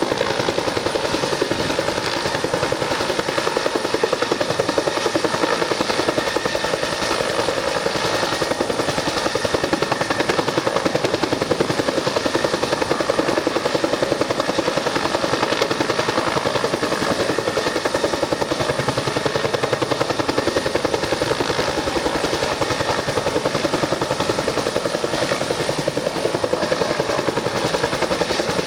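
Search-and-rescue helicopter hovering for a winch rescue, its rotor blades beating in a fast, steady rhythm.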